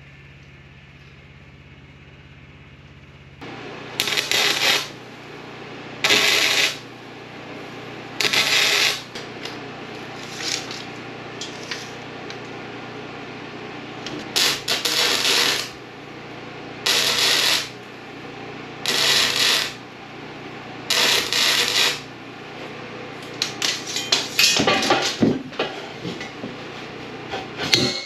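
Electric welder tack-welding a square steel tubing frame: about eight short bursts, each under a second, with sharp starts and stops. Near the end comes a quick run of sharp metal clinks and taps.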